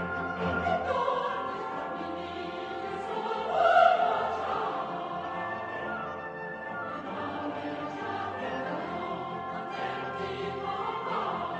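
Classical music with a choir singing over an orchestra, sustained and swelling to its loudest about four seconds in.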